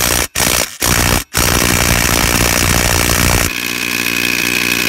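Ridgid Octane brushless cordless impact driver hammering on a tightened lug nut: a few short trigger pulls, then a long continuous run from about a second in that turns to a steadier, higher ringing about halfway through. The nut does not come loose.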